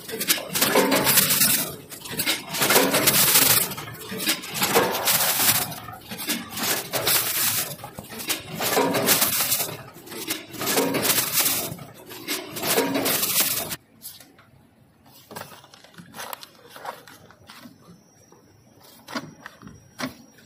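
Automatic pet-food weighing and pouch-packing machine running through its cycle, with a loud burst of mechanical clatter about every two seconds. It cuts off suddenly about 14 seconds in, leaving faint clicks and the rustle of plastic packets.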